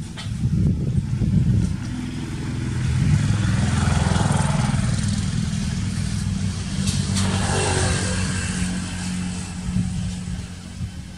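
Motor vehicle engines running close by as road traffic passes, swelling loudest about four seconds in and again past the middle, then easing off.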